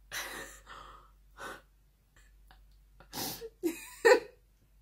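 A woman's breathy laughter: a few short puffs of breath in the first second and a half, then louder laughing with some voice about three to four seconds in.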